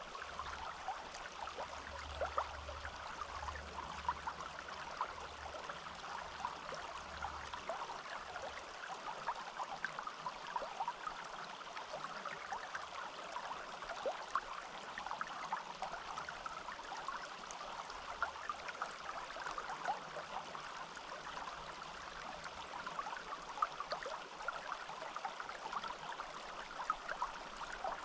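A small forest stream babbling and trickling steadily over stones, a dense patter of small splashes.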